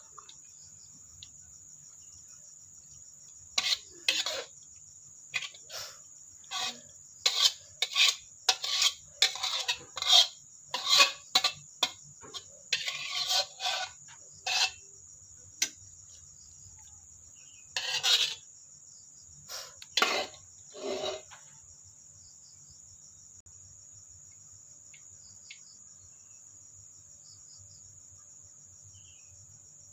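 Crickets chirring in a steady high-pitched drone, under a run of short clinks and scrapes of a cooking utensil against cookware that stop about two-thirds of the way through.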